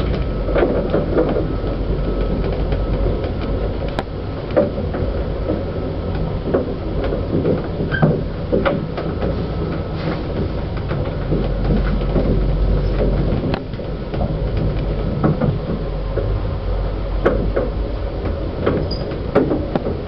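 Old Express passenger lift car travelling down its shaft: a steady low rumble with irregular clicks and knocks from the car and shaft throughout.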